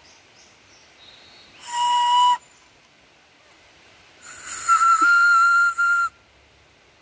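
Homemade flutes cut from young horsetail shoots, blown twice with a breathy whistle: a short note about two seconds in, then a longer, higher note about four seconds in, each piece giving a different pitch.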